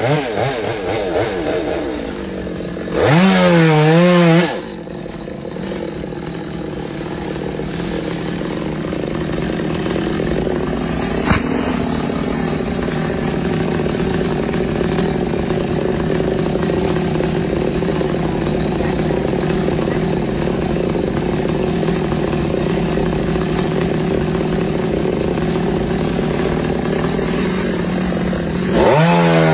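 Chainsaw running, revved hard in loud bursts with a wavering pitch about three seconds in and again near the end, and running quieter and steadier in between. A single sharp click comes about eleven seconds in.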